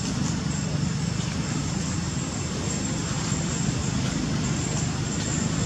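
Steady low rumble of background road traffic, even in level throughout.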